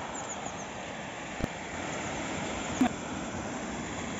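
River water flowing, a steady even rush, with a single sharp click about a second and a half in.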